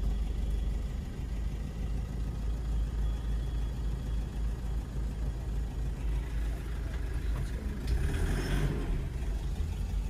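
Car engine running, heard from inside the cabin as a steady low rumble, with a brief hiss about eight seconds in.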